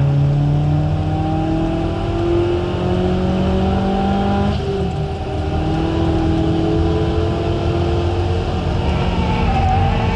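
Turbocharged four-cylinder engine of a 2006 Mitsubishi Colt Ralliart, heard from inside the cabin, pulling hard under full throttle with revs climbing. About four and a half seconds in the pitch drops as it shifts up a gear, then it climbs again, over steady road and tyre noise.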